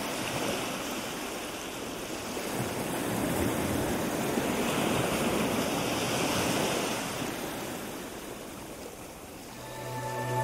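Wind rushing over the microphone. It swells in the middle and eases off toward the end, where music comes in.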